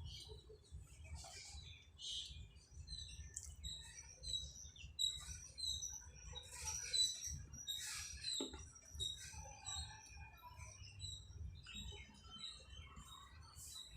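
Small birds chirping, many short high chirps scattered throughout, with a few brief clicks among them.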